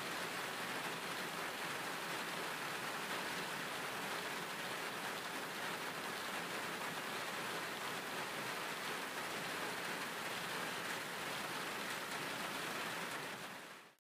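A steady, even rushing hiss with no tone or rhythm, fading out quickly just before the end.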